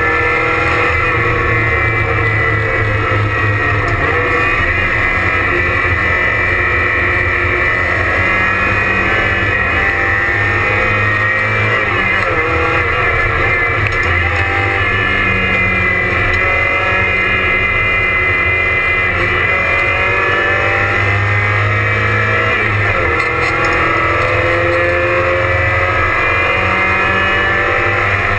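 Porsche 944 race car's four-cylinder engine heard from inside the stripped cabin, running hard at racing speed, its revs climbing and falling back again and again.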